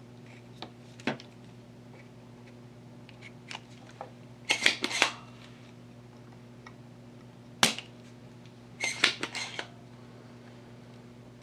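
Spring-loaded Soldapult desoldering pump being cocked and fired, giving sharp snaps. There is a cluster about halfway in, one loud snap a little later and another quick cluster near the end, over a steady low hum.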